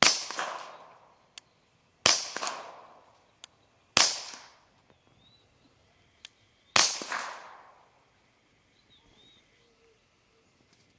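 Four suppressed shots from a Walther P22Q .22 LR pistol, spaced about two to three seconds apart, each trailing off in an echo.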